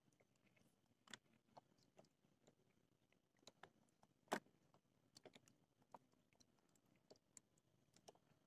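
Near silence with faint, scattered small clicks and ticks, the loudest about four seconds in, from hands handling fishing line and a hook.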